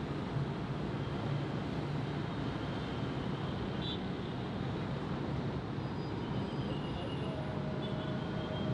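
Steady rumble of dense city traffic, engines and tyres blended together, with a few faint, thin high tones now and then.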